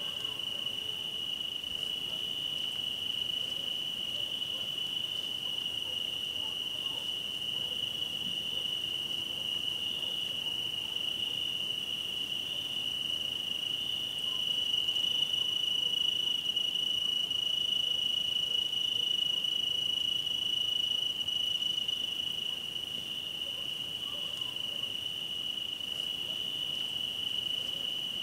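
Crickets trilling in one steady, unbroken high-pitched chorus, a little louder from about fourteen seconds in.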